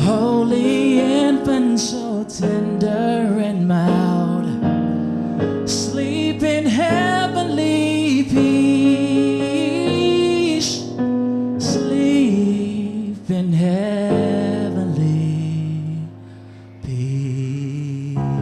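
A singer's long, wavering vocal runs over piano and keyboard accompaniment, with a brief drop in level near the end.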